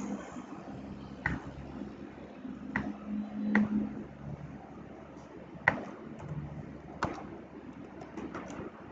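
Computer mouse and keyboard clicks: about five sharp, separate clicks spread out, with a few fainter ticks near the end, over a faint low steady hum.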